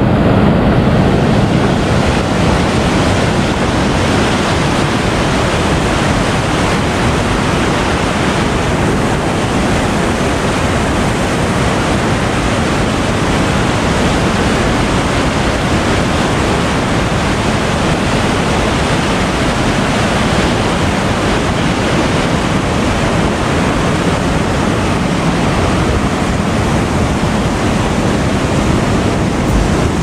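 River water pouring over a wide weir in a steady, loud rush of white water.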